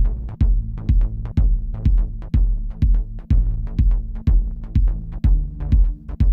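Electronic synthesizer music with a steady beat, about two beats a second, over sustained bass tones.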